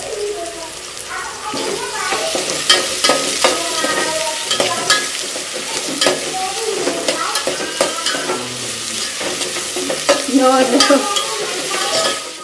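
Chopped onions and green chillies sizzling in hot oil in a metal pot, stirred with a spatula that clicks and scrapes against the pot again and again. The onions are being fried until soft, the first stage of a pumpkin palya.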